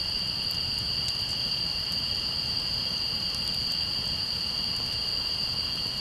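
Steady, high-pitched chorus of night insects holding two pitches, with a few faint crackles from a wood campfire.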